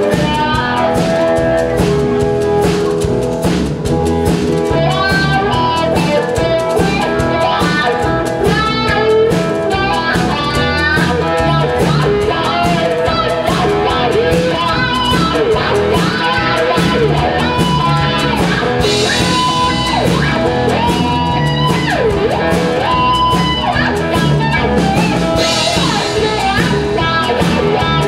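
Amplified cigar box guitar playing an instrumental blues part over a steady beat.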